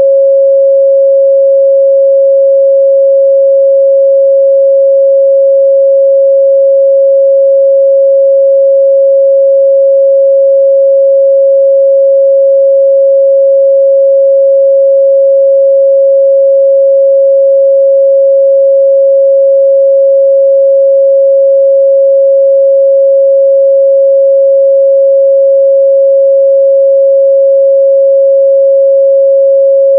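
A continuous 547 Hz sine-wave test tone, one pure steady pitch at constant loudness, used to check a speaker's or headphones' midrange response.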